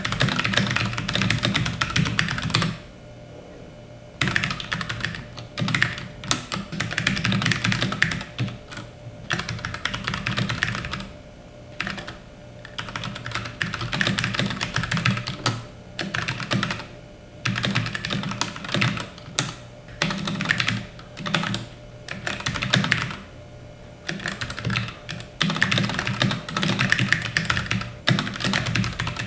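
Keychron K6 aluminum mechanical keyboard with brown switches being typed on: fast runs of keystrokes broken by short pauses every few seconds.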